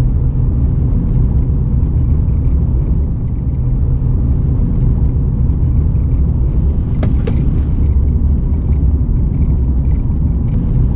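Steady low rumble of a car driving, road and engine noise as heard inside the cabin. A few faint clicks come about seven seconds in.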